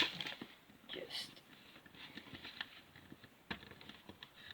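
Small plastic figure parts being handled and pressed together: faint scattered clicks and rubbing, with one sharper plastic click about three and a half seconds in.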